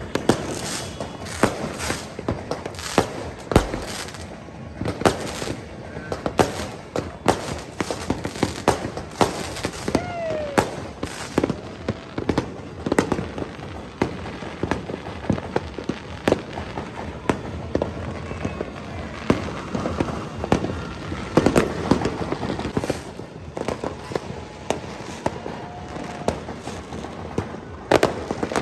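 New Year's fireworks and firecrackers going off in irregular rapid bangs and pops, several to a second at times, over a constant background crackle.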